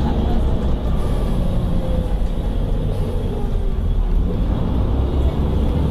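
Volvo B7TL double-decker bus's diesel engine and drivetrain running steadily under way, heard from the passenger saloon as a low drone, with a faint whine falling in pitch from about two seconds in.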